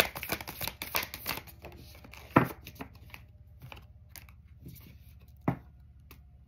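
Tarot cards being shuffled by hand: a quick run of crisp card clicks for about the first second and a half, then two single sharp taps, about two and a half and five and a half seconds in.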